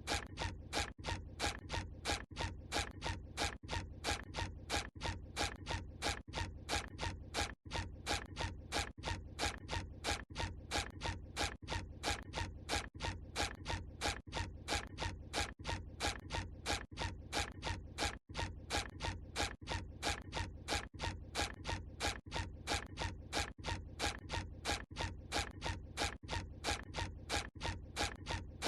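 SpongeBob SquarePants cartoon walking sound effect: a rapid, even run of short footstep sounds, about two to three steps a second, repeating without a break except for two very brief dropouts.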